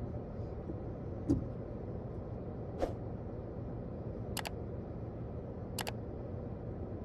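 Steady low hum of a car cabin with the engine idling at a standstill, a soft thump about a second in, then two sharp double clicks about a second and a half apart: mouse-click sound effects of an on-screen subscribe animation.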